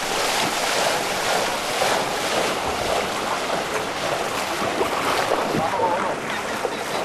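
Steady rushing of water, with wind buffeting the microphone.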